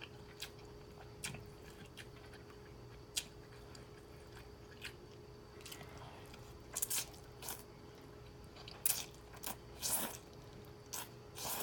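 Close-miked chewing and biting of noodles, beef and broccoli: scattered light clicks at first, then a quick run of wet mouth sounds in the second half. A faint steady hum runs underneath.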